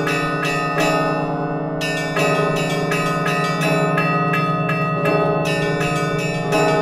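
Russian Orthodox church bells ringing together: several smaller bells struck in quick rhythmic succession, about four or five strokes a second, over the steady hum of larger bells.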